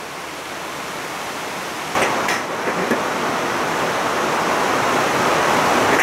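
Large metal drum fan running, a steady rush of air noise. A few light knocks about two to three seconds in, where the noise gets louder.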